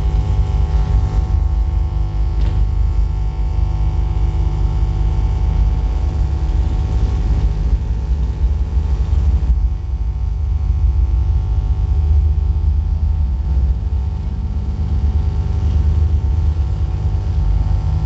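A microwave oven's electromagnetic field, picked up by a coil and fed into an amplifier, played as a loud, deep bass rumble with steady humming tones above it.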